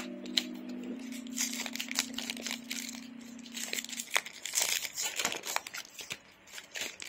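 Clear plastic sticker sleeves crinkling as they are handled, with a steady low tone underneath that stops about four seconds in.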